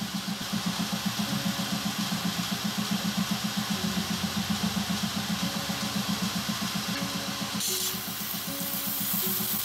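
Belt sander running with a fast, even pulsing, a chef's knife blade held flat and ground dry against the abrasive belt to take out deep surface scratches, with a steady grinding hiss.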